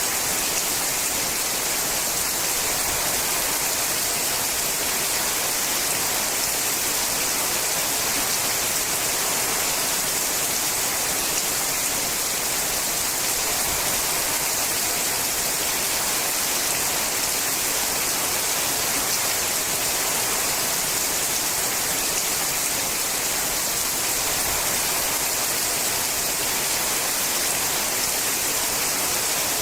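Rain falling steadily on a sheet-metal roof: an even, unbroken hiss with no single drops standing out.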